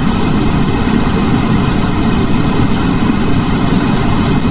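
Alarm clock's built-in sound machine playing a steady, low rumbling noise track.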